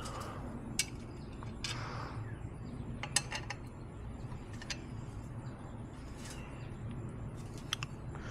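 Scattered light clicks and clinks of intake pipes, clamps and hand tools being handled and fitted in an engine bay, a few single knocks and a short cluster, over a steady low background rumble.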